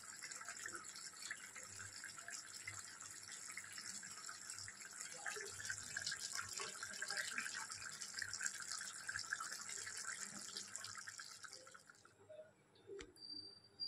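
Chicken masala curry sizzling and bubbling in a kadai on a gas stove: a steady crackling hiss that stops suddenly about twelve seconds in.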